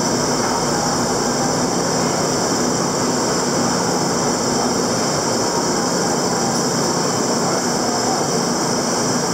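Steady, loud machinery noise from a running coke conveyor belt at a CDQ plant: a constant low hum under a dense rumble and a high hiss, unchanging throughout.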